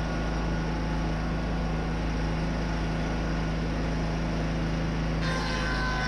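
Wood-Mizer board edger running steadily with a low engine hum. About five seconds in, a higher whine joins.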